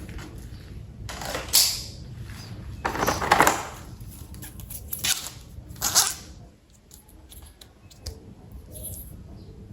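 Toy train packaging handled close to the microphone: about four rustling, tearing strokes in the first six seconds, then quieter with only faint handling.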